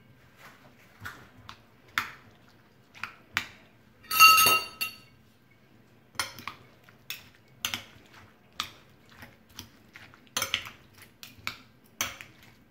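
A metal spoon clinking and tapping against a glass bowl while chickpeas and mashed potato are stirred together: a scatter of light clicks, with one louder ringing clink about four seconds in.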